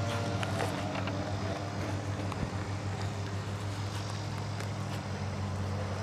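Steady drone of a small engine, a neighbour's lawn mower running in the background, with a few faint taps and rubs as a motorcycle helmet is pulled on and adjusted.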